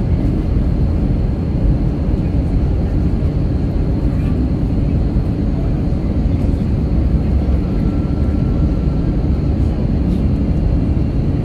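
Steady low rumble of engine and airflow noise inside the cabin of an Airbus A320-family jet airliner descending on approach to land, with a faint steady high whine above it.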